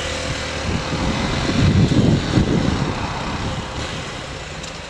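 Motorcycle riding in traffic: engine running under heavy wind rush on the helmet camera's microphone. A louder low rumble swells for about a second near the middle.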